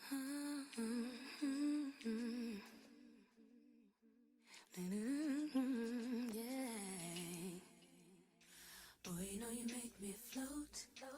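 A woman humming a wordless, gliding melody in three phrases, with short pauses between them.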